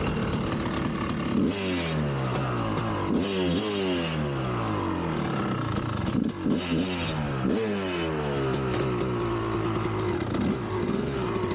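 1999 Kawasaki KX250 two-stroke engine revved in about five sharp blips, each one jumping up and then falling away, before running steadier near the end.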